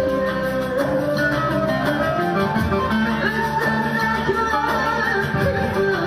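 A woman singing a Turkish folk song into a microphone over instrumental accompaniment in which plucked strings stand out.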